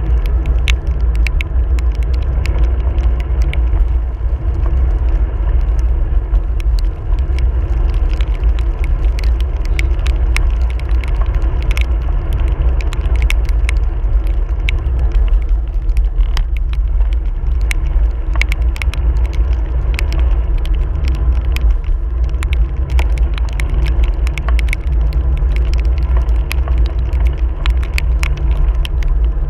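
Heavy, steady wind rumble on the microphone of a camera carried along on a road ride, with many scattered sharp clicks and ticks throughout.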